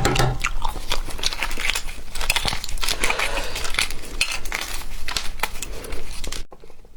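Shell of a hard-boiled goose egg being cracked and peeled close to the microphone: a dense run of irregular crackles and crunches that stops abruptly near the end.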